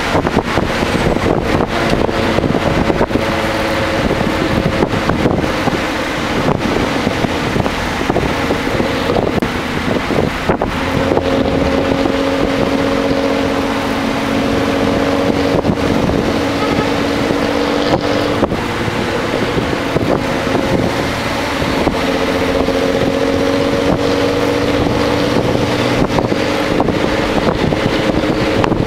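Nissan Altima SE-R's 3.5-litre V6 running under load, heard from inside the cabin with steady road and wind noise. The engine note climbs in two long pulls with a drop in between.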